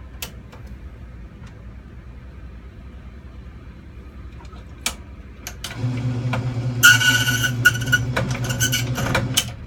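Key-cutting machine duplicating a Master M1 padlock key: a few clicks as the blank is set, then the motor starts about six seconds in with a steady hum, and the cutter grinds a harsh high rasp into the key blank for about two and a half seconds before the motor stops.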